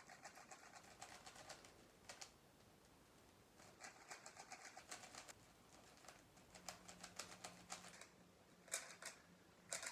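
Rubik's cube being scrambled: faint, rapid plastic clicking of the layers being turned, in runs of one to two seconds with short pauses between.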